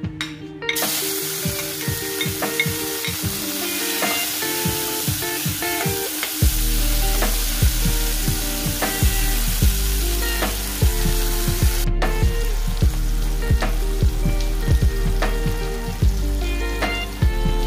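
Chopped tomatoes, garlic and onion dropped into hot oil in a stainless steel pan, sizzling up about a second in and then frying steadily as they are stirred.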